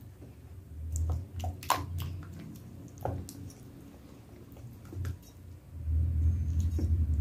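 A hand squelching and squeezing wet, sticky bread dough in a stainless steel bowl, with a few sharp wet slaps and clicks in the first three seconds. A low rumble grows louder near the end.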